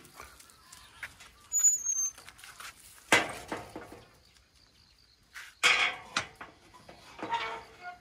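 Dog barking several times in short, sharp barks spread over a few seconds, with a faint high bird chirp early on.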